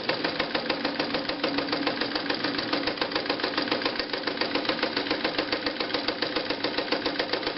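Morse DeLuxe ZigZag sewing machine sewing a straight stitch at a steady speed, its motor running under a fast, even beat of needle strokes. The machine runs quietly while sewing.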